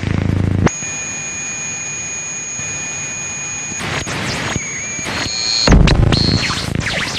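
Electronic noise music: a steady high-pitched whine over hiss starts about a second in and is broken by a burst of noise near four seconds. A loud low boom comes a little before six seconds, and a higher whine follows it.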